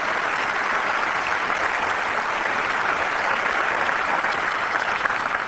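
Large audience applauding steadily in a big hall.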